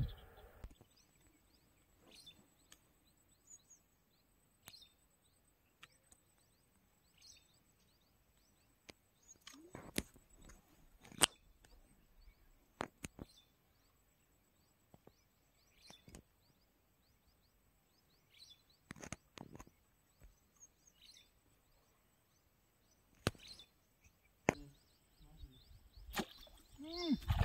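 Quiet outdoor ambience: scattered short bird chirps and a number of sharp clicks or taps at irregular intervals, over a faint steady high-pitched tone.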